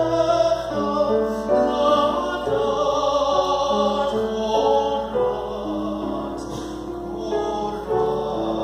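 Music with singing: several sustained notes sounding together, some of them wavering.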